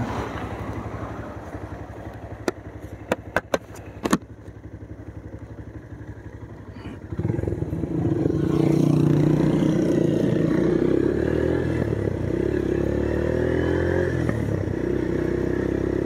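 Motorcycle engine running at low speed, with a few sharp clicks early on. About seven seconds in it gets much louder as the bike accelerates, its note rising and dipping repeatedly.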